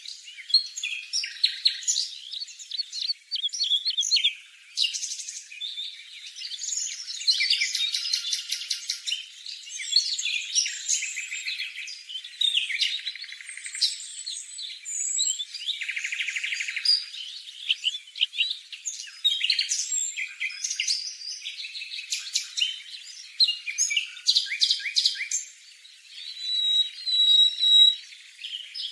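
Formosan barwing singing: a continuous, varied run of chirps, rapid trills and buzzy notes with brief pauses, all high and thin with no low sound.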